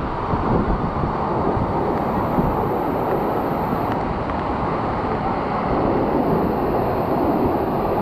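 Steady rushing roar of a monsoon-swollen waterfall and stream in full flow.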